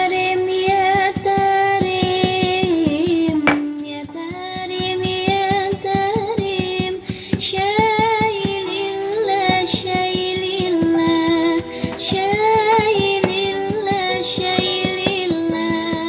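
Background music with a singing voice carrying a wavering melody over a quick beat.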